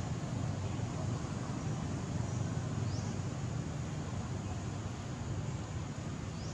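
Steady low outdoor rumble, with a faint short high rising chirp about three seconds in and another near the end.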